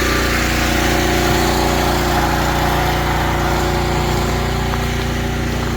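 Diesel tractor engine running at a steady speed.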